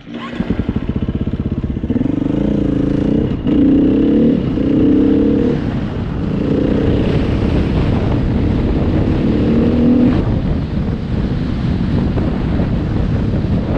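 KTM dirt bike engine pulling away from a stop and accelerating through several gears, its note rising and breaking off briefly at each shift. From about ten seconds in it runs on more steadily under a rushing noise.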